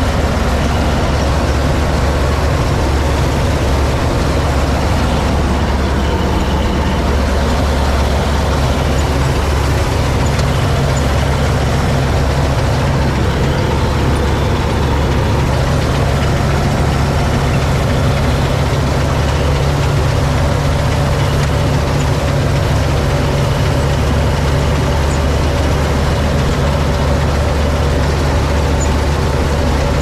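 Massey Ferguson 86 combine harvester working in the field, heard from the driver's seat: its engine and threshing machinery run steadily under load, with a low engine note that strengthens slightly about ten seconds in.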